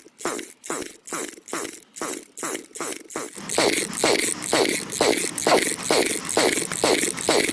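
Two-stroke brush cutter's recoil starter being pulled over and over, quickly, about three or four pulls a second, each a short falling rasp of the cord and cranking engine. The engine does not catch: this is a hard-to-start engine being cranked repeatedly.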